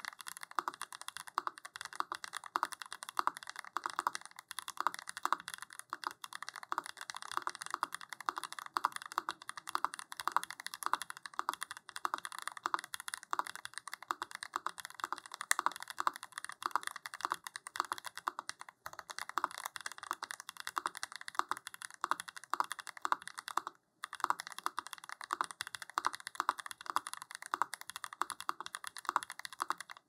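Custom mechanical keyboard fitted with lubed Ashkeebs Amethyst tactile switches (long-pole POM stems), typed on fast and continuously: a steady stream of crisp keystroke clacks with one brief pause near the end.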